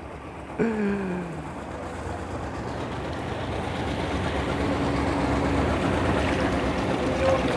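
Outboard motor of a small center-console boat running at low speed as it pulls away, under a hiss of wind and wake water that grows steadily louder.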